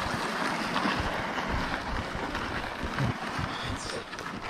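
Plastic ice-fishing sled loaded with gear dragged over lake ice on a rope: a steady scraping hiss, with footsteps, growing quieter near the end.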